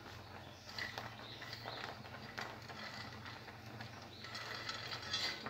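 Faint, scattered clicks and taps of a steel plate and fingers against a pot rim as makhana and dried fruits are brushed off the plate into boiling milk.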